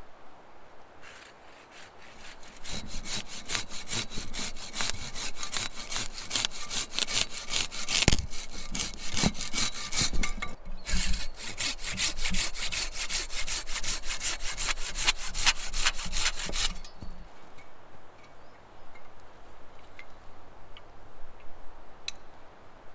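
Curved-blade pruning saw cutting through a birch branch in quick, even back-and-forth strokes. The sawing starts a few seconds in, pauses briefly partway through, then stops several seconds before the end.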